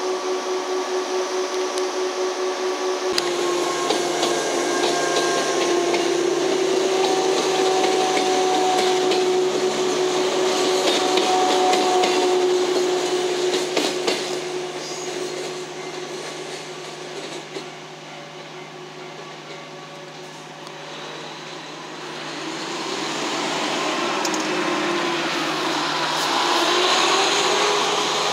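KuMoYa 145 series electric railcars passing close by: a steady whine from the traction motors over the noise of the wheels on the rails, fading after the middle. Another electric train draws closer and grows louder near the end. A pulsing ringing tone sounds for the first three seconds, then cuts off.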